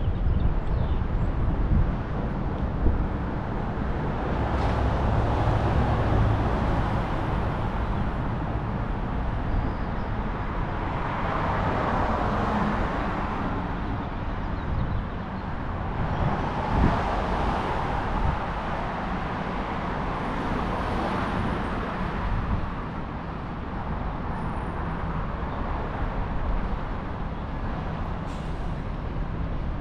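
Steady road traffic, with several vehicles passing one after another, each swelling and fading over a constant low rumble.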